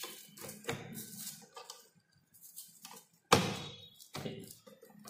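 Plastic clicks and knocks from the ribbon spindle and mechanism of a Zenpert 4T520 thermal transfer barcode printer being pressed and rotated by hand to lock the carbon ribbon roll in place, with a loud sharp clack a little after three seconds in and another just after four.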